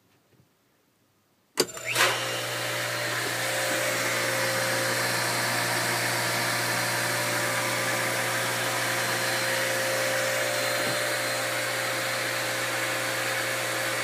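A sharp click as the motor contactor latches, about a second and a half in, then the older Jacuzzi FM series pool pump motor starts and runs steadily with a low hum.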